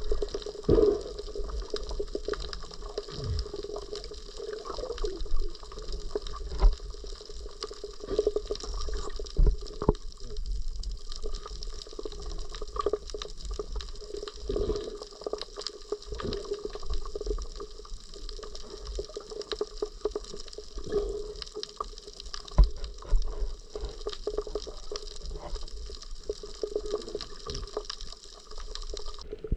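Moving water, sloshing and gurgling, with scattered short knocks and thumps over a steady hiss.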